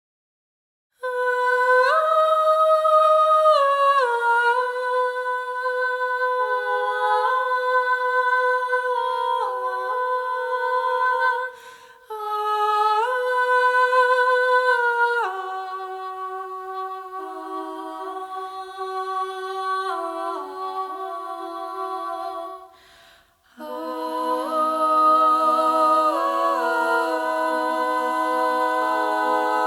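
A female vocal group singing wordless a cappella harmony, with held chords that move step by step. It comes in three phrases with short breaths between them, and a lower voice joins for the third phrase.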